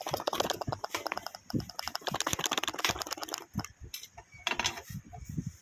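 A whole apple being twisted and broken apart by hand, its crisp flesh giving a rapid run of crackling cracks and crunches, with one more short burst of cracking near the end.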